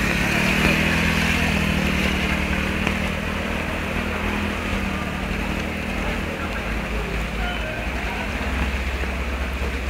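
A vehicle engine running steadily over an even wash of noise, possibly from water or rain.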